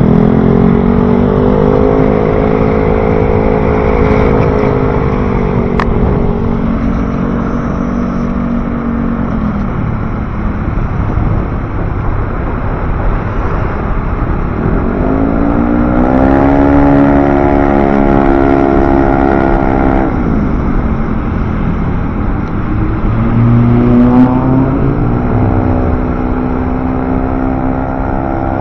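City road traffic: motor vehicle engines rising in pitch, holding and dropping back three times over a steady rumble of traffic noise.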